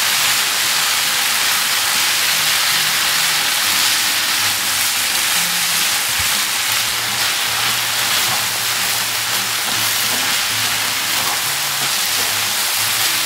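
Sliced pork bulgogi with onion, green onion and green chilies sizzling steadily in a nonstick frying pan as it is stir-fried with chopsticks, the sauce cooking down.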